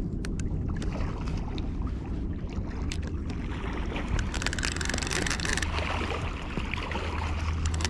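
Conventional fishing reel being cranked with short clicks, while a hooked blue catfish splashes at the surface beside the boat, over a steady rumble of wind on the microphone.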